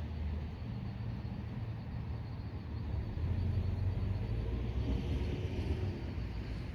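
Car driving: a steady low rumble of engine and road noise, with a hiss that swells about five seconds in.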